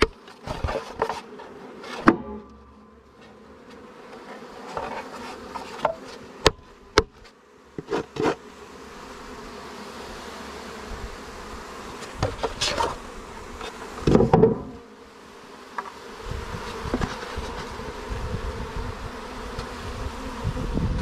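Honeybees buzzing around an open hive, the buzz growing louder and steadier about halfway through. Over it come a dozen or so sharp knocks and bumps as hive parts are handled.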